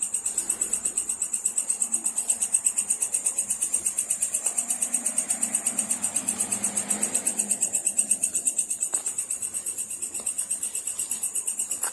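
Insects, likely crickets, trilling steadily in a high, rapid pulsing rhythm of about seven pulses a second.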